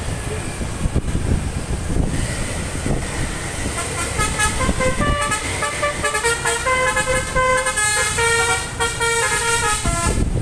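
A tour bus's telolet multi-tone horn plays a tune of short, stepped notes. It starts about four seconds in and stops just before the end, over a low rumble of wind and traffic.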